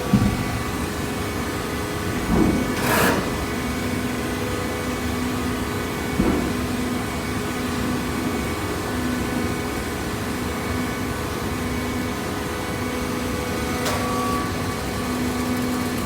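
Hydraulic cardboard baler running: a steady hum from its pump motor, with a low tone that cuts in and out in short pulses and a few clunks, the loudest about two to three seconds in.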